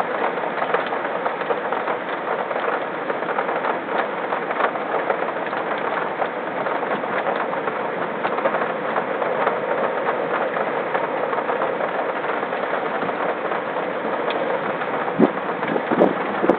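Steady rain falling, a constant hiss with many small drop ticks on nearby surfaces. A couple of louder knocks near the end.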